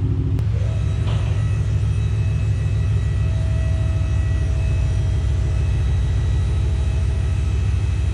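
A car engine idling: a steady low rumble that throbs evenly, with a faint short rising whine about a second in.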